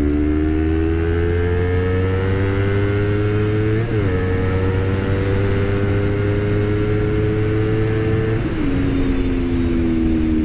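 Honda CBR250RR's parallel-twin engine pulling hard at high speed, its pitch climbing steadily. About four seconds in the pitch dips briefly as the bike shifts up, then it climbs again. Near the end it steps down and slowly falls as the rider eases off.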